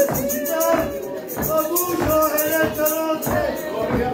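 A hymn sung with instruments, with a tambourine or shaker keeping a quick, steady rhythm over the held melody.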